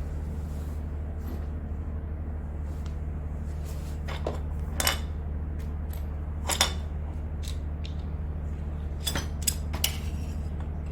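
Small metal and plastic seat-belt parts clicking and clinking as they are handled and rummaged through, about half a dozen sharp clicks scattered over several seconds, over a steady low hum.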